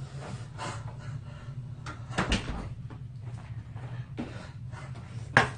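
Dishes and utensils handled at a table: a few separate knocks and clatters, the sharpest near the end, over a steady low hum.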